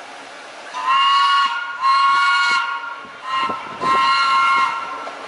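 Vintage subway train sounding its horn as it approaches: four blasts, long, long, short, long.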